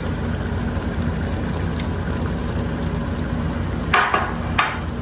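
Ground beef frying in a pot, a steady sizzle with a low hum underneath. About four seconds in come two short, louder bursts of noise.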